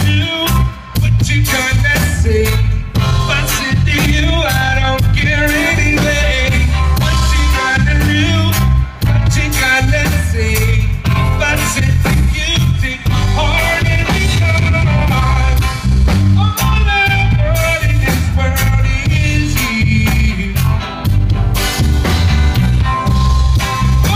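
Live band playing a reggae-style song, amplified through a stage PA: electric guitar, small acoustic guitar and drum kit over a heavy bass line, in a stretch without sung words.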